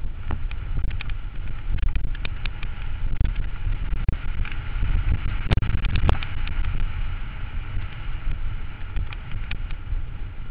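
Mountain bike ridden over a rocky dirt trail, with wind buffeting the microphone, tyres rolling over stones and the bike rattling. Frequent small clicks and knocks come through, and two sharper knocks stand out about halfway through.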